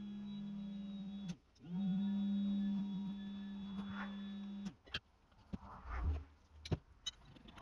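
A small electric motor running with a steady hum. It cuts out about a second and a half in, spins back up a moment later and stops near the five-second mark. A few light clicks and knocks of tools being handled follow.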